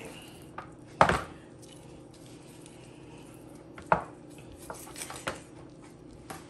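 A kitchen knife cutting up a whole raw chicken in a plastic bowl: a sharp knock about a second in, another just before four seconds, then a few lighter clicks.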